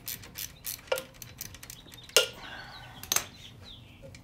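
Socket ratchet clicking in quick strokes as an 8 mm pinch bolt is backed out of a motorcycle's gear shift lever, then a few sharper metal clinks about a second apart.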